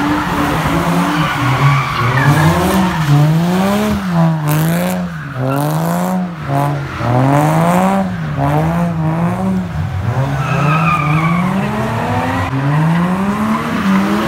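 A car being drifted: its engine is revved up and down over and over, roughly once a second, while its tyres squeal and skid on the tarmac.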